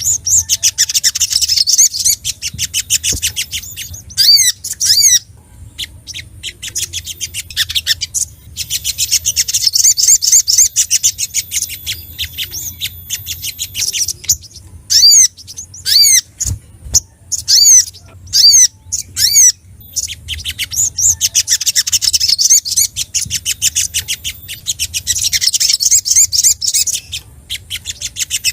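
Sogok ontong (sogon) sunbird singing hard: long bouts of rapid, high twittering chatter broken by runs of sharp, clear down-slurred whistles. This is the excited, rival-seeking song that birdkeepers call 'gacor'.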